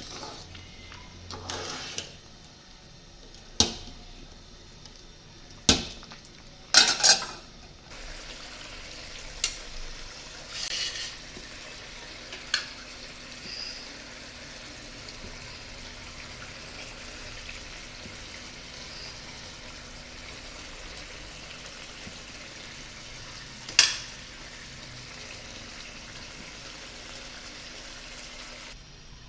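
A metal spoon clanking against steel cooking pots, about half a dozen sharp knocks with the loudest cluster about seven seconds in and another near the end. A steady hiss sets in about eight seconds in and carries on underneath.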